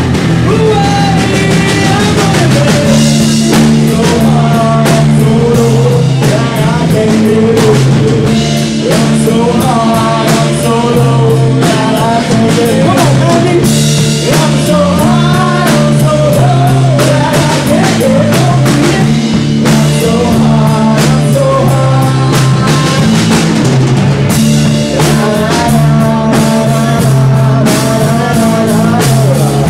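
Live rock band playing loud: drum kit, bass line and electric guitar, with a singer.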